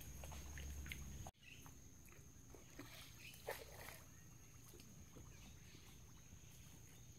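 Faint, soft squelching footsteps in wet riverbank mud, with one sharper click, over a steady high-pitched whine. A low rumble cuts off abruptly about a second in.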